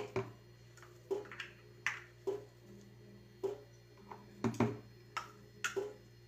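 Metal spoon clinking and scraping against a glass jar and a plastic pot as crushed garlic paste is spooned out, about a dozen irregular taps.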